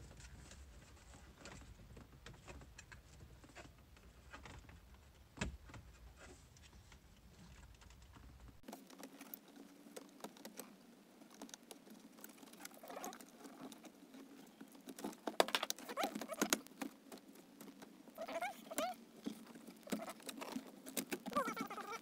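Plastic dashboard trim of a 2015 Honda Fit being handled and pressed back into place: scattered clicks, taps and light rattles of plastic, busier in the second half, with a few sharper snaps.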